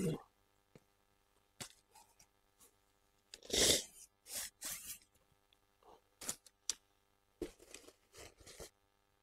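Fabric rustling and scraping in short, irregular bursts as the packed OEX Hyena II tent in its bag is pulled out of a rucksack, loudest about three and a half seconds in.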